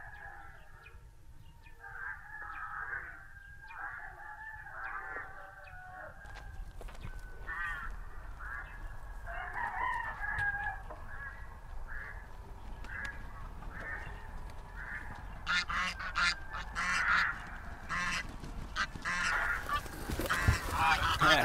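Domestic geese honking and cackling in a long run of short calls. The calls grow louder and busier over the last few seconds.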